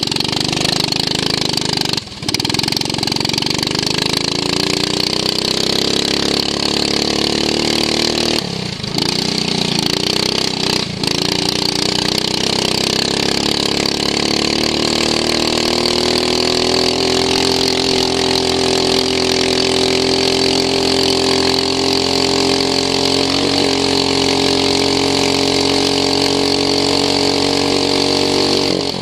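Racing lawn mower's engine, heard onboard at race pace. It dips briefly three times early on, then revs climb steadily and hold high and even for the second half.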